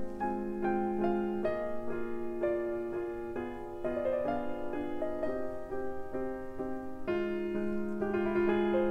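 Background piano music: a slow, gentle melody of single notes, about two a second, over a held lower note.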